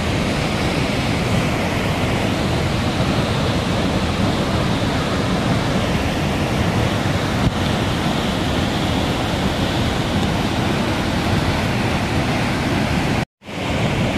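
Muddy floodwater cascading over a rocky cliff as a waterfall: a steady rushing of water that cuts out for a moment near the end.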